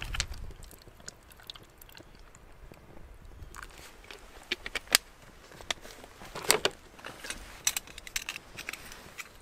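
Water being poured from a bottle into a metal pot on a spirit burner stops just after the start. Then there are scattered, irregular sharp clicks and crunches, loudest in a short cluster about six and a half seconds in.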